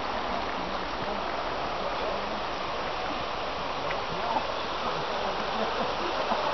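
Upper headwaters of the Nantahala River running over shallow rocks below a bridge: a steady, even rush of water.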